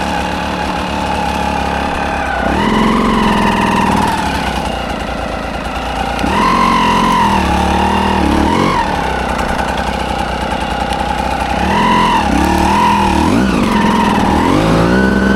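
Dirt bike engine running under throttle, revving up and dropping back in four or five separate bursts, with lower running between them.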